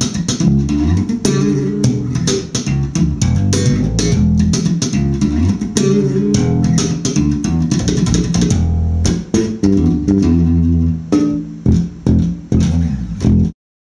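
Fender electric bass guitar played unaccompanied in funk slap style: thumb slaps and popped strings in a busy rhythm. It thins out to a few separate hits near the end and stops abruptly.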